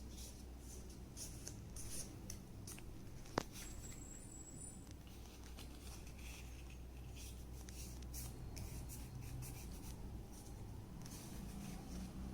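Faint rustling and scraping of a paper circle being handled and folded by hand, with one sharp click about three and a half seconds in.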